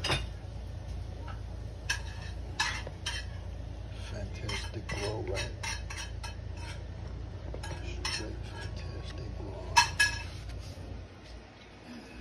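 Fresh-picked tomatoes, cucumbers and yellow squash being handled in a clear bowl: a string of short clicks and knocks as the vegetables bump against each other and the bowl's rim, with two louder knocks about two-thirds of the way through. A low steady hum runs underneath.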